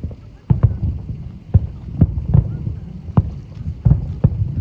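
Firework shells bursting in quick succession: a rapid, irregular run of deep booms, about two or three a second.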